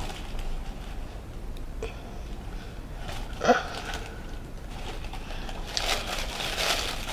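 Soft rustling as small wrapped items are handled and set down, with a brief hummed murmur from a woman's voice about halfway through.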